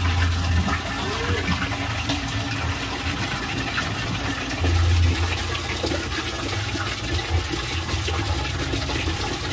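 Washing machine running with water rushing in, over a low motor hum that swells briefly a few times.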